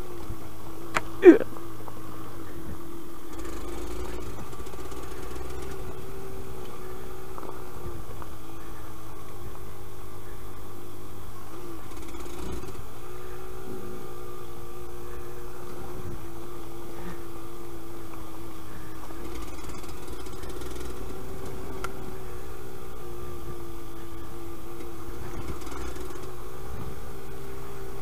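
Yamaha DT125 YPVS single-cylinder two-stroke engine running under way, its note steady with brief dips in pitch several times as the throttle comes off and on. A sharp knock about a second in is the loudest moment.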